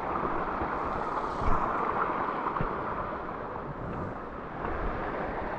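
A steady rushing noise, such as running water or wind, with a brief louder moment about one and a half seconds in.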